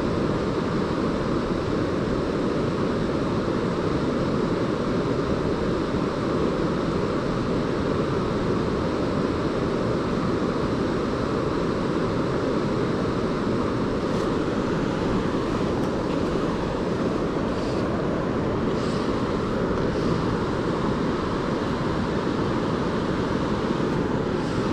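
River current rushing steadily, an even wash of moving water at a constant level.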